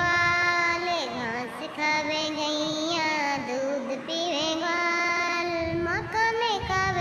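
A high-pitched voice singing a slow melody in long, held notes with a wavering vibrato, sliding between pitches, over a musical backing.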